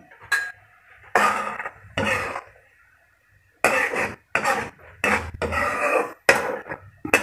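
Metal ladle scraping and stirring around an aluminium wok of simmering soy-sugar sauce: a run of short scrapes that come closer together in the second half, as the sauce is reduced to thicken.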